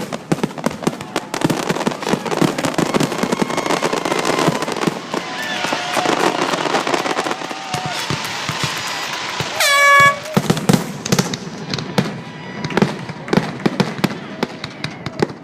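Fireworks grand finale: a dense, rapid volley of shell bursts and crackling, many bangs a second. A short, loud horn blast sounds about ten seconds in.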